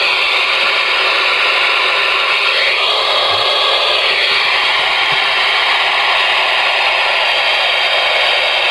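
Ranger RCI-69FFB4 ten-meter radio's speaker putting out steady, loud band static, with faint wavering whistles drifting through it about halfway in.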